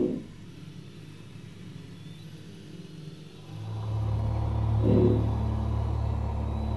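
Electroacoustic tape music: a brief pitched swell dies away, then a deep, steady drone comes in about halfway through and holds, with another short pitched swell over it about two-thirds of the way in.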